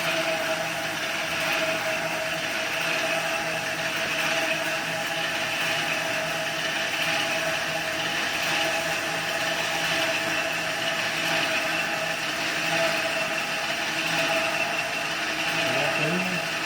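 Rubber and EVA foam splitting (skiving) machine running steadily: a constant mechanical hiss with a steady whine over it.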